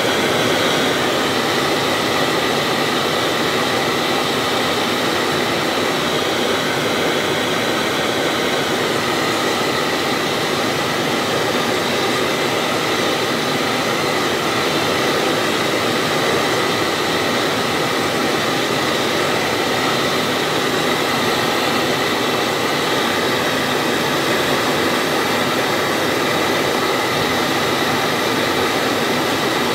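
Gas blowtorch burning with a steady, even rushing hiss as it heats a copper tank tube to silver-soldering temperature.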